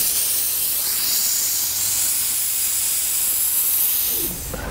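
Compressed air from an air compressor line hissing steadily as it is forced through a hose clamped onto an outboard motor's waterlogged control cable, driving oil and trapped water through the cable, with air escaping where the hose is clamped. The hiss stops near the end.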